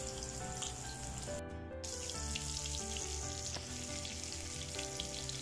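Whole masala-coated fish shallow-frying in coconut oil, sizzling steadily in the pan; the sizzle cuts out briefly about a second and a half in. Soft background music of held notes plays under it.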